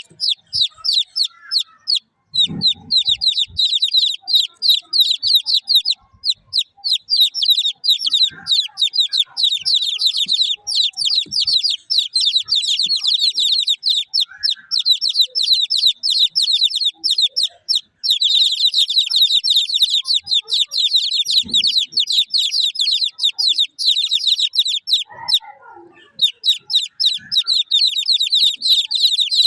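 A brood of baby chickens peeping: many short, high chirps overlapping in a continuous stream, with a few brief pauses.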